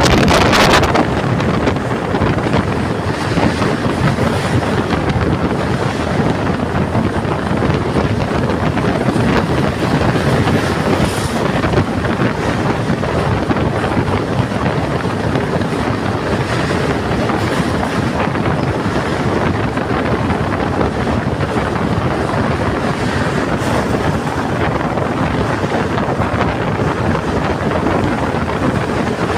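Steady running noise of a moving train, heard from on board, with wind buffeting the microphone, a little louder in the first second.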